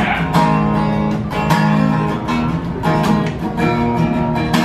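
Takamine cutaway acoustic guitar strummed in a steady rhythm of chords: the intro of a song, before the singing comes in.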